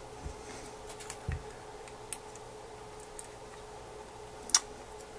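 Small precision screwdriver clicking against tiny screws and the metal frame of an iPhone 3GS being taken apart: a few light, scattered ticks, the sharpest about four and a half seconds in, over a faint steady hum.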